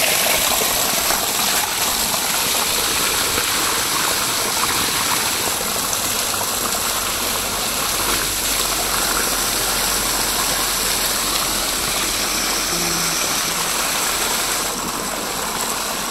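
Water gushing from the end of a corrugated hose, a steady loud rush splashing onto the ground and into a pot held under the stream to fill it.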